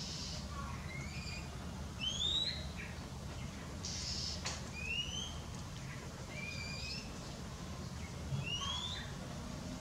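Birds chirping in the background: short rising chirps every second or two, over a steady low hum.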